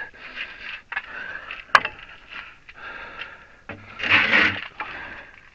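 Workshop handling noises as a hydraulic ram's piston and rod are fitted back into the cylinder: a sharp metal clink nearly two seconds in and a louder rushing scrape about four seconds in, with small knocks between.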